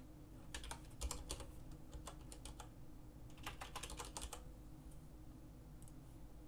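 Faint typing on a computer keyboard: three short runs of keystrokes in the first four seconds or so, then only a few scattered clicks.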